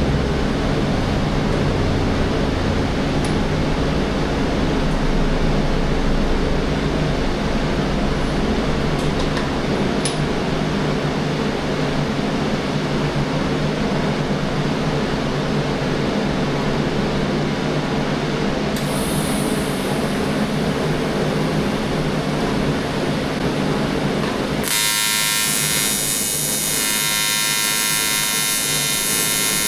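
A steady machine hum, then about 25 seconds in an AC TIG welding arc strikes on aluminum and runs as an even, dense buzz.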